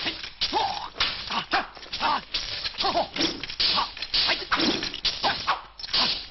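Kung-fu film fight sound effects: a rapid run of punch and kick impacts and whooshes, several a second, mixed with short shouts from the fighters.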